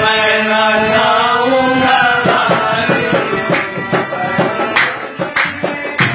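Sufi devotional singing at a sama gathering: a voice holds long, bending notes, and from about two seconds in it is joined by sharp percussive strokes that come thicker toward the end.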